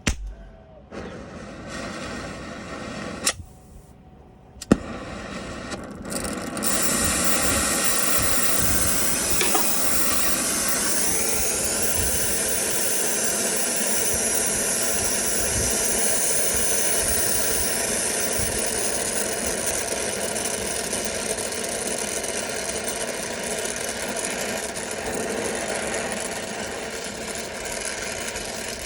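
A few sharp clicks. From about six seconds in, a brazing torch flame hisses loudly and steadily as it heats 3/8-inch copper tubing at a filter-drier joint.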